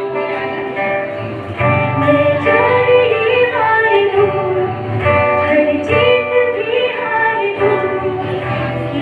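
A woman singing a song solo into a handheld microphone over a PA, holding long melodic notes, with instrumental accompaniment underneath.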